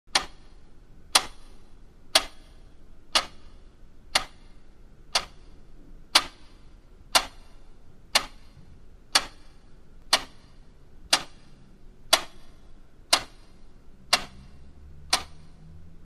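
Clock ticking, one sharp tick a second with a short ringing tail, the last couple of ticks fainter.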